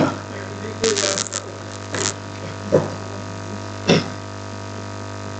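Steady electrical mains hum, with a few short, faint sounds from the room over it, about one, two, three and four seconds in.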